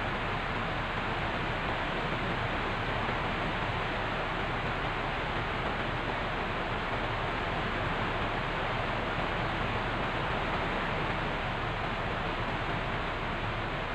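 Steady, even rushing noise that does not change, with nothing else standing out.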